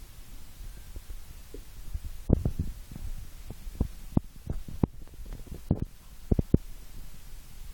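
Irregular low thumps and knocks from the phone being handled against its microphone, about a dozen in all, bunched around two and a half seconds in and again between about four and six and a half seconds, over a low steady hum.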